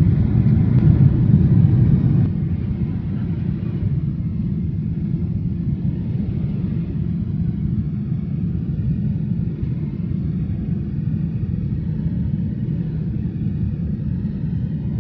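Steady low rumble of engine and airflow noise inside the cabin of a Boeing 747-8 climbing out after takeoff. About two seconds in it drops abruptly to a slightly lower, even level.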